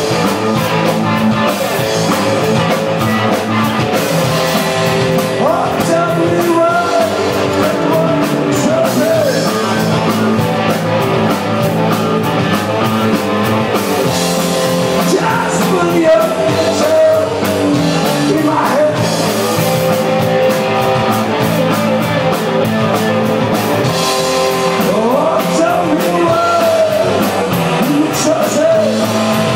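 Live rock band playing loud: electric guitars, bass and drum kit with a male singer's voice over them.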